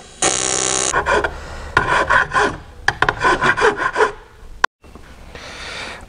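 TIG welding arc buzzing on a cast aluminum oil pan as a crack is filled. It runs steadily at first, then pulses on and off in short runs, and turns to a fainter hiss in the last second.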